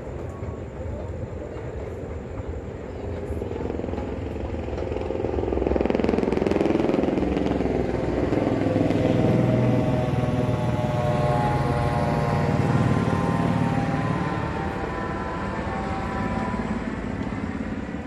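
An aircraft passing overhead, growing louder over a few seconds and then slowly fading, its tone sliding down as it goes by. Steady street background underneath.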